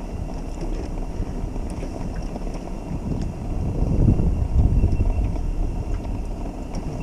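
Wind buffeting the microphone outdoors: a low, rumbling rush that swells in stronger gusts about four seconds in.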